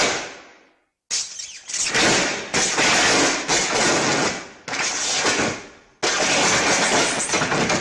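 Classic original-trilogy lightsaber clash and strike sound effects: a run of sudden, noisy hits, several in quick succession. Some die away over about a second before the next one cuts in.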